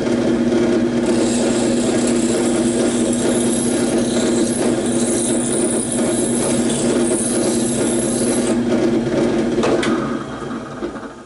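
Small power tool running steadily, its bit grinding through a hole in the plastic battery tray with a rasping sound from about a second in until near the end. The motor then stops and winds down.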